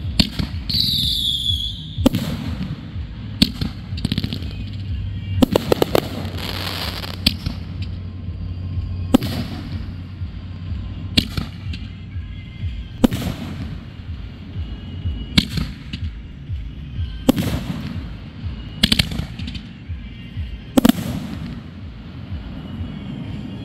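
Aerial consumer fireworks firing and bursting: a whistle falling in pitch near the start, then sharp reports every one to two seconds, with a quick cluster of pops about five to six seconds in.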